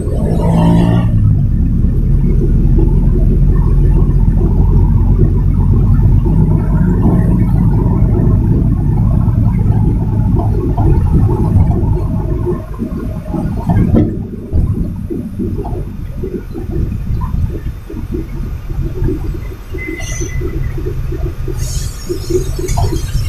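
Container truck's diesel engine running on the road, a deep steady drone heard from inside the cab. It eases off somewhat a little past halfway.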